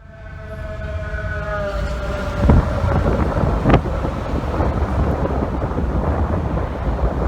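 Fire truck siren winding down in pitch over the first two seconds while the truck's engine rumble swells, then the loud, steady low rumble of the fire apparatus's engine close by. Two sharp knocks come about midway.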